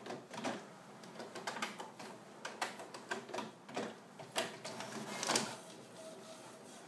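HP DeskJet F2280 inkjet all-in-one printer starting a print job, its paper-feed mechanism clicking and whirring in short, irregular spells.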